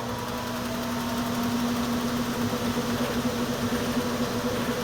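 Haier HLP23E portable washing machine running, its motor giving a steady hum.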